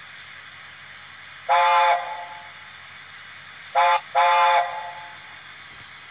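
Sound decoder in a Dapol OO gauge Gresley A4 model steam locomotive sounding its whistle through the model's small speaker: one blast, then a short and a longer blast a couple of seconds later. A steady hiss runs underneath throughout.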